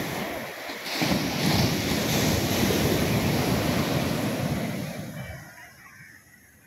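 Sea surf breaking and washing up the sand, with wind buffeting the microphone. The rush swells about a second in and dies away after about five seconds.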